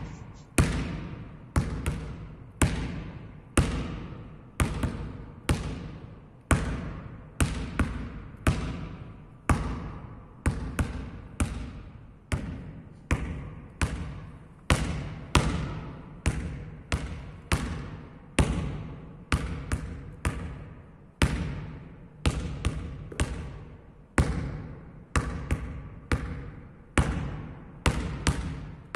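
Basketball dribbled on a sports-hall floor, about two bounces a second, each bounce ringing briefly in the hall. The ball is switched from hand to hand between bounces.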